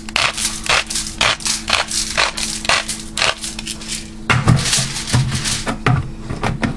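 Pepper mill grinding black pepper, a quick run of crunchy grinding strokes about three a second. About four seconds in the grinding stops and gives way to duller rubbing and handling sounds.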